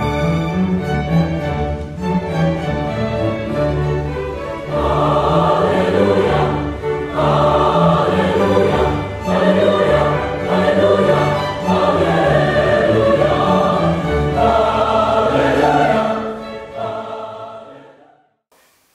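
Orchestral music with a choir singing; the voices swell in about five seconds in, and the music fades out near the end.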